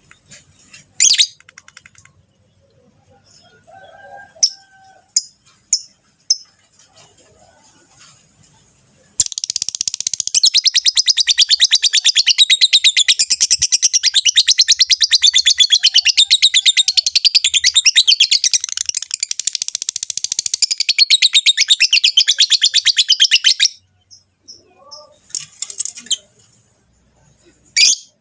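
Lovebirds' breeding chatter: a few sharp, shrill chirps, then from about nine seconds in some fourteen seconds of rapid, unbroken chattering, which stops suddenly and gives way to a few more sharp calls.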